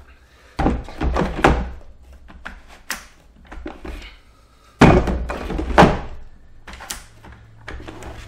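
Fit Stir adjustable dumbbell, mostly plastic, knocking and thunking as it is lifted out of and set back down into its plastic stand: a cluster of knocks about half a second in, a louder cluster about five seconds in, then a few light clicks near the end.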